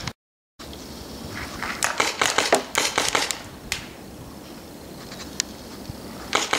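Crunching footsteps in snow, a quick irregular run of crunches in the first half, with a single sharp click later. The sound drops out completely for a moment near the start.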